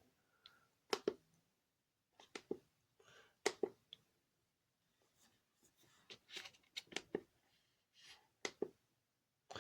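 Light clicks and taps in small clusters, about a dozen in all: buttons being pressed on a Bosch Hammer handheld diagnostic tester while stepping through its menus.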